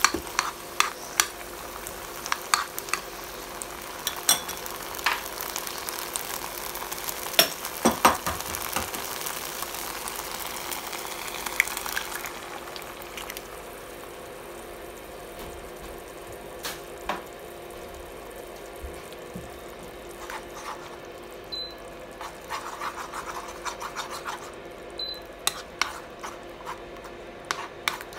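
Yard-long beans and garlic sizzling in hot oil in a nonstick pan, with a spatula clicking and scraping against the pan as they are stir-fried. The sizzle dies down about twelve seconds in, and near the end the spatula scrapes around the pan again as an egg is stirred through the beans.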